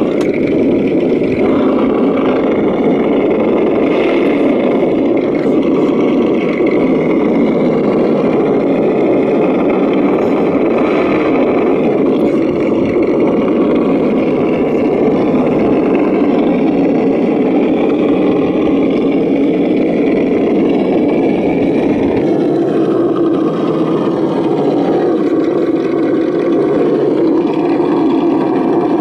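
Simulated V8 engine sound from the RC crawler's sound system, a continuous loud rumble as the Axial SCX10 scale truck crawls along.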